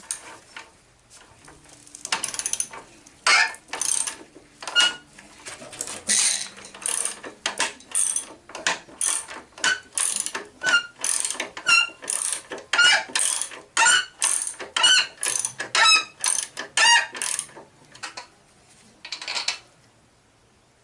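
Socket ratchet wrench worked back and forth in quick strokes, each stroke a short burst of ratchet clicks, about one or two strokes a second, stopping a little before the end.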